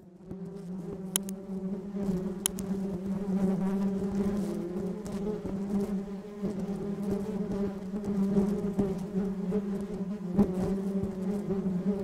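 Honeybees on the comb humming: a steady, low-pitched drone of many bees together, with no pauses.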